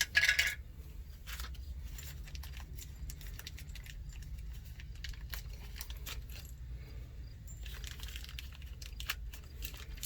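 Small metal parts being handled: a sharp clatter at the start, then scattered light clicks and clinks, over a low steady rumble.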